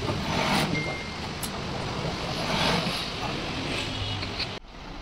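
Mattress tape edge sewing machine running, stitching the border tape onto a mattress: a steady mechanical sewing noise that swells and fades, dropping abruptly near the end.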